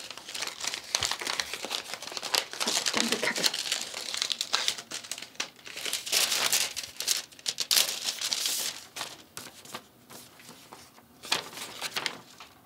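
A paper envelope torn open by hand and the folded letter inside pulled out and unfolded: irregular tearing, crinkling and rustling of paper, thinning out near the end.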